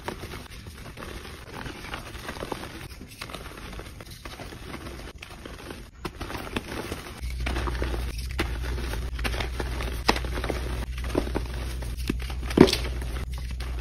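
Hands crushing and crumbling blocks of reformed gym chalk, giving irregular soft crunches and gritty crackles as the chalk breaks into powder. A sharper, louder crunch comes near the end, and a low steady hum sits underneath from about halfway.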